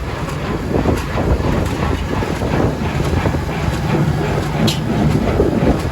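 Tractor running on the move, a steady low rumble with continuous clattering and rattling.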